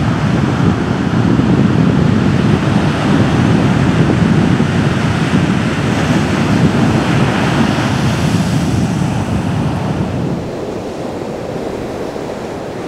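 Big ocean waves breaking and crashing in heavy surf, with wind on the microphone; the surf noise eases a little about ten seconds in.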